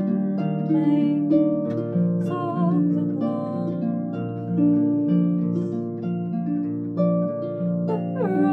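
Concert pedal harp played with both hands: a repeating figure of plucked bass notes under ringing higher notes. A woman's voice sings along over it with a light vibrato.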